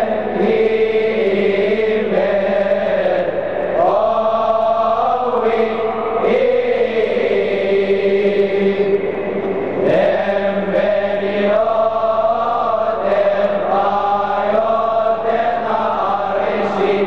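Coptic deacons' choir of young men chanting a hymn together, one slow melodic line of long held notes linked by ornamented turns.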